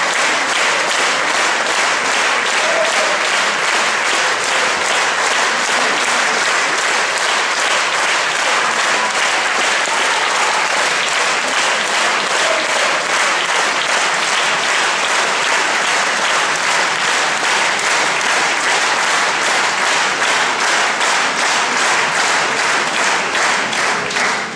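Concert-hall audience applauding loudly and steadily, the clapping falling into a regular beat of unison claps.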